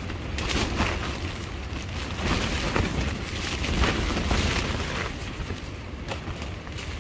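Strong gusty wind buffeting a nylon tent, the fabric flapping and snapping in several gusts over a heavy wind rumble on the microphone.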